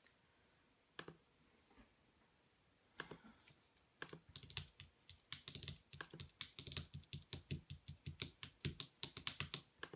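Clicking on a 2011 MacBook Pro's keyboard and trackpad. There are single clicks about one and three seconds in, then from about four seconds a quick run of clicks, several a second.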